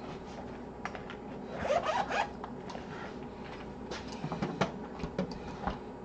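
A zipper on a tool kit case being pulled open with a rasping run, followed by a scatter of light clicks and taps as tools are handled.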